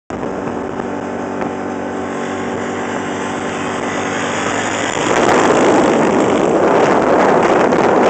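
ATV engine running with a steady note. About five seconds in, loud wind rush on the microphone takes over and covers it.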